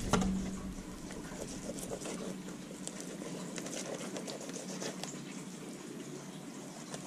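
Fillet knife slicing a crappie fillet away along the bones on a plastic cutting board. It makes faint, irregular crackling and scraping clicks as the blade works over the bones and skin.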